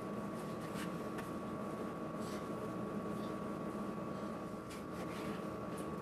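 Kitchen knife slicing raw meat into thin strips on a cutting board: a few soft, irregular taps over a steady background tone.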